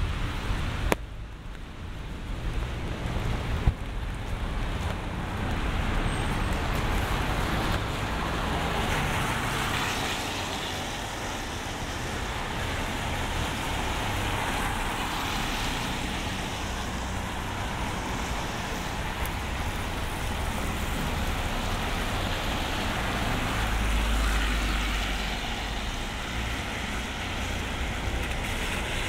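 Road traffic passing on a wet city street: a steady hiss of tyres with engine rumble, swelling as vehicles go by, and a heavier low rumble near the end.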